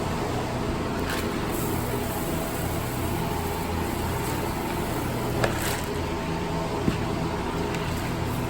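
Steady hum and whoosh of large electric barn fans running, with a couple of brief knocks a little past the middle.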